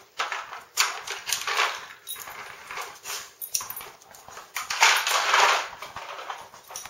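A dog sniffing and nosing at a plastic treat-puzzle toy (Nina Ottosson Dog Tornado), shoving it across a tiled floor in a run of irregular noisy rustles and knocks, loudest about five seconds in.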